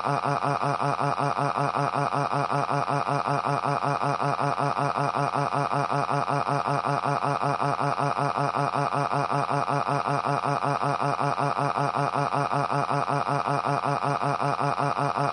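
A synthesized text-to-speech voice holds one long, unbroken crying wail, 'waaaaa', at a steady pitch with a fast, even pulsing.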